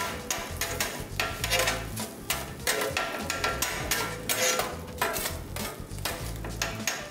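Two steel spatulas scraping, chopping and clacking on a flat-top teppanyaki griddle as egg is scrambled, with many quick irregular metal clicks over a sizzle.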